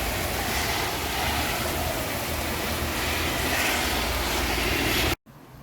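Heavy rain pouring and wind gusting in a thunderstorm, a loud steady rushing with wind rumbling on the microphone. It cuts off suddenly near the end.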